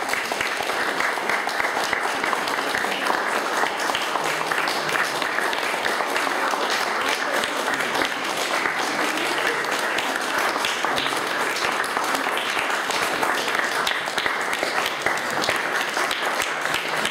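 Small audience applauding: dense, steady hand-clapping that keeps going throughout.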